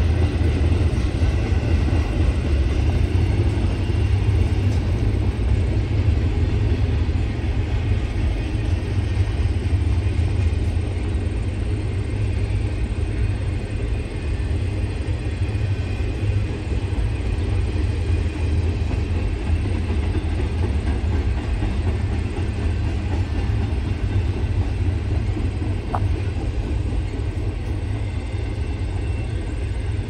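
Double-stack container freight train rolling past, its well cars' wheels on the rails making a steady low rumble.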